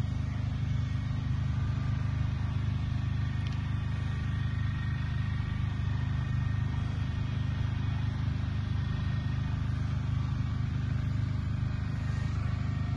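A steady low rumble with a faint hum in it.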